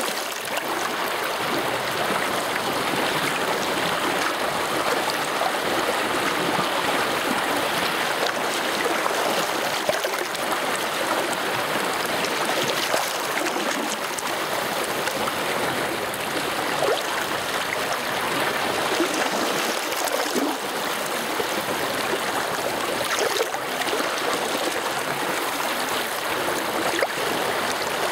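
Rain-swollen mountain stream rushing and splashing close up, a steady wash of running water.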